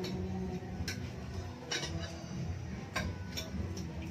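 Cutlery clinking against plates during a meal: about five light, irregularly spaced clinks over a low background hum.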